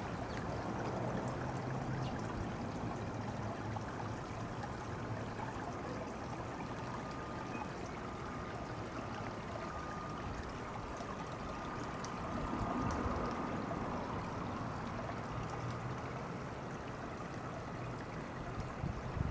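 Steady outdoor background hiss, an even rushing noise with no distinct events.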